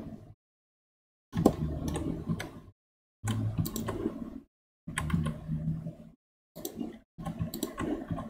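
Computer mouse and keyboard clicks over a low background hum, in bursts of about a second that cut off abruptly into dead silence between them, five times.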